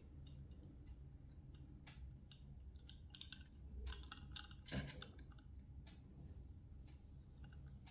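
Faint, irregular metallic scrapes and clicks of a knife blade drawn along an oval honing steel, a few separate strokes, the loudest a little past halfway.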